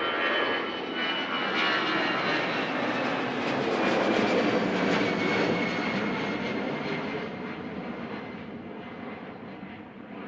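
An airliner's jet engines at high power as it passes close by on takeoff. High whining tones drop slightly in pitch over a loud rushing noise, which peaks a few seconds in and then fades away.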